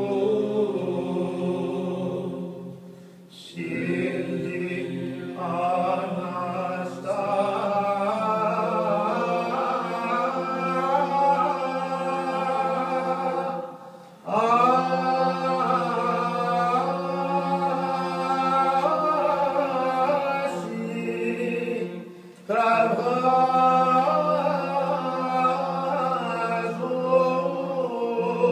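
Choir chanting a cappella in the Byzantine style: a melody moving over a steady held low drone note (ison). The chanting falls in phrases, with short breaks about 3, 14 and 22 seconds in.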